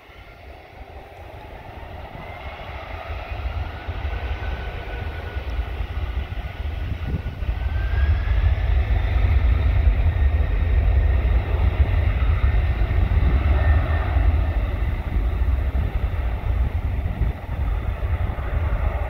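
Boeing 767-300 freighter's twin turbofan engines spooling up to takeoff thrust at the start of the takeoff roll. A whine rises in pitch and the jet noise grows over the first several seconds, then holds as a loud, steady rumble as the aircraft accelerates down the runway.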